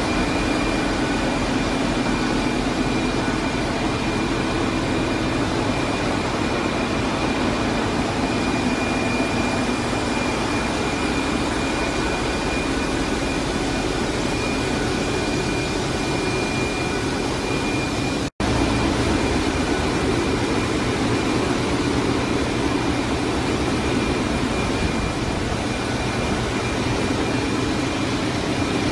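Steady, loud machinery din of a ship's engine room, with the Wärtsilä 8L50DF dual-fuel engines and auxiliary pumps running. A thin high whine runs over it until the sound drops out for an instant about two-thirds of the way through.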